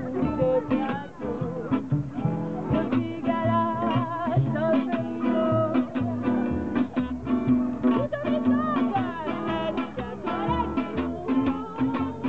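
Live band music: a woman singing over a guitar with a steady strummed rhythm.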